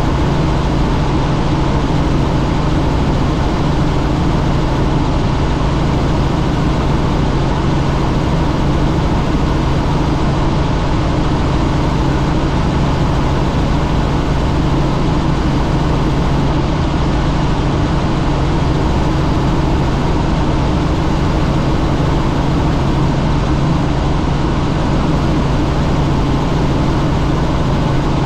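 Light helicopter in flight, heard from inside the cabin: a steady, loud drone of engine and rotor with a low hum over even noise, unchanging throughout.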